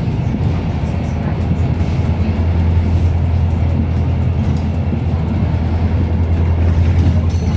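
Volvo B5LH hybrid double-decker bus heard from inside the lower deck while under way: its four-cylinder diesel engine and drivetrain give a steady low drone, mixed with road and body noise.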